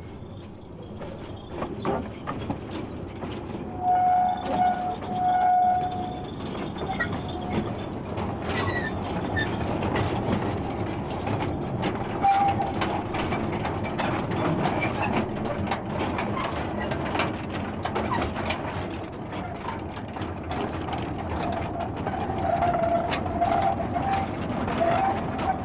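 A narrow-gauge locomotive train running, its engine rumbling under a steady clatter and clanking of wheels and wagons on the rails. Two short horn toots sound about four to six seconds in.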